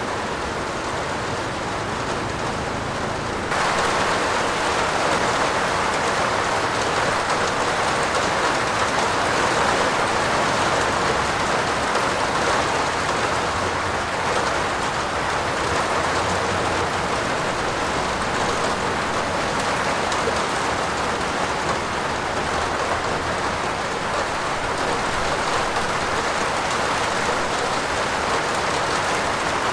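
Steady heavy rain falling on a roof, an even hiss without pauses. About three and a half seconds in, the rain jumps suddenly louder and brighter and stays that way.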